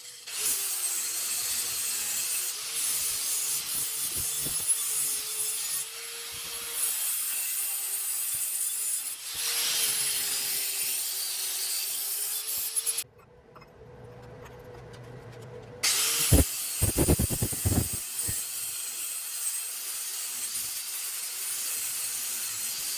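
Continuous rough scraping of abrasive work on a hatchet, with a faint steady hum beneath it. It breaks off for a few seconds about two-thirds through, then resumes with a short run of sharp knocks.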